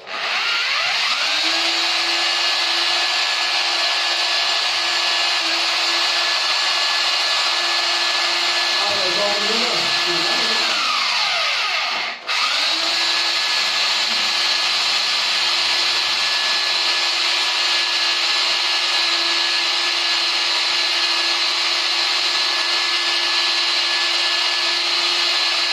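Electric rotary hammer drill running steadily at constant speed as its bit bores into ceramic wall tile. The motor stops for a moment about halfway through, then starts again at the same pitch.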